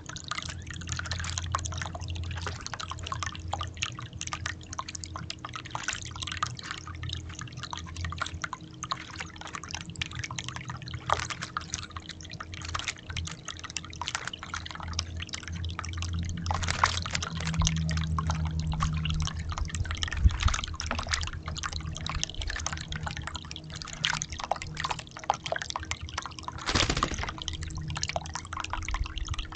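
Water splashing and dripping in a birdbath as an acorn woodpecker bathes: a dense, continuous patter of small splashes, with a louder splash near the end and a steady low hum underneath.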